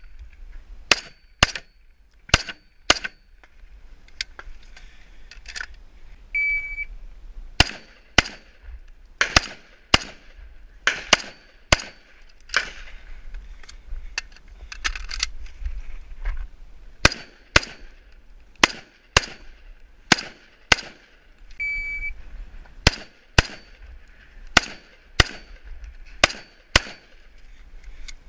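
M1A rifle firing rapid shots, mostly in quick pairs about half a second apart, with short pauses between strings. Two brief high ringing tones sound about six and a half seconds in and near twenty-two seconds.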